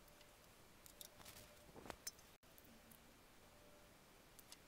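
Near silence, with a few faint plastic clicks and a brief scrape about a second in, from handling an ink damper and priming syringe at a printer's print head.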